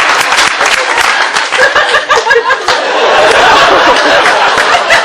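A live audience laughing and chattering, with scattered clapping as applause dies away.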